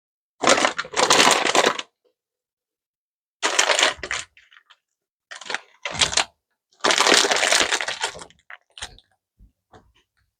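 Handling sounds at a crock pot: several bursts of rustling, each a second or so long, with a few light clicks and clinks in between.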